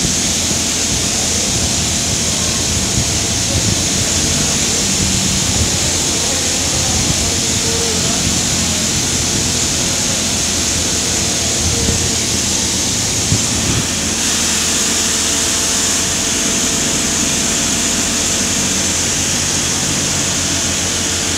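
Steady noise of running drilling rig machinery: a constant loud hiss over a low hum, with a couple of faint knocks.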